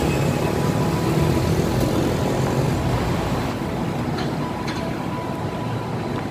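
Steady city traffic noise: an even rumble and hiss of road vehicles with no single event standing out.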